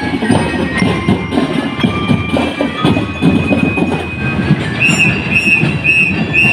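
Drum and lyre corps playing on the march: snare and bass drums beating a fast, dense rhythm under a held high note. Near the end come four short high toots, about two a second.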